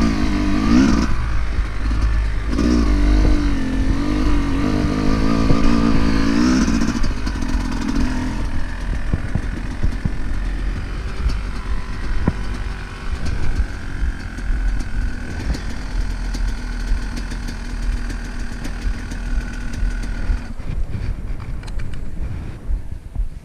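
Dirt bike engine under way, its note rising and falling for the first several seconds, then settling into a lower, steadier run.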